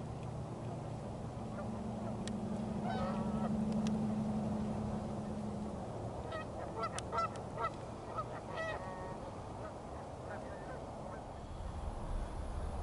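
A flock of Canada geese on the water, honking in scattered short calls that grow busiest around the middle, over a low steady hum in the first half.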